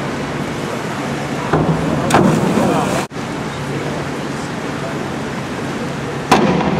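Steady crowd chatter in a pool hall. A diver enters the water from a springboard with a splash about a second and a half in, followed by a brief burst of crowd noise. A second entry splash comes near the end.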